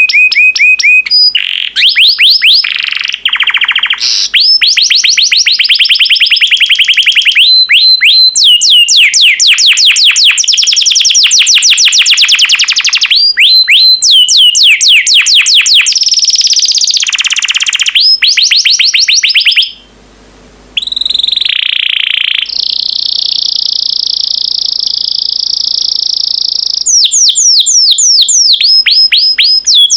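Yellow domestic canary singing a long song of fast trills and rolling repeated notes. It pauses briefly about two-thirds of the way through, then holds a long, steady high note before the trills return.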